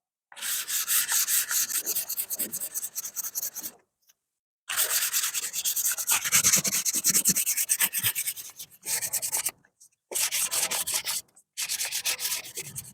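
Sandpaper rubbed by hand over cured body filler (icing glazing putty) on a pickup's body panel, in quick back-and-forth strokes in several spells with short pauses between them. It is the smoothing of a fresh filler coat on a dent repair.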